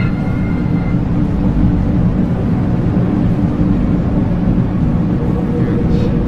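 A loud, steady low rumbling drone, the kind of unexplained noise presented as a strange sound in the sky. A brief higher tone sounds over it for about the first second.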